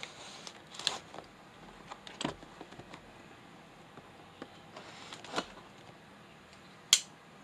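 Cardboard retail box being handled and opened: a few short scrapes and rustles as it is gripped and turned, then one sharp click near the end.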